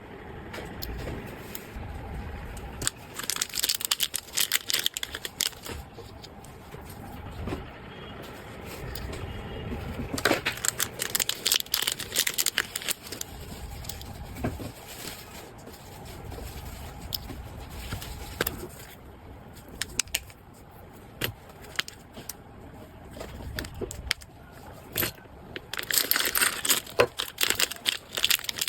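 Packaging being handled and opened by hand: irregular crinkling, crackling and tearing with scattered clicks, in several louder spells.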